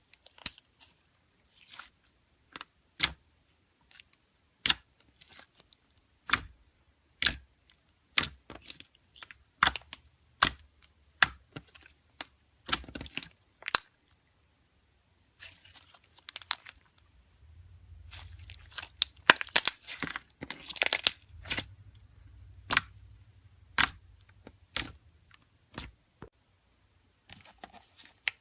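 Slime being worked by hand, giving irregular sharp popping clicks one after another, with a brief pause near the middle and a denser run of crackling after it.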